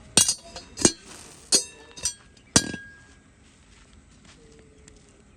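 Five sharp clinks of hard objects striking one another over about two and a half seconds, each leaving a brief ringing tone.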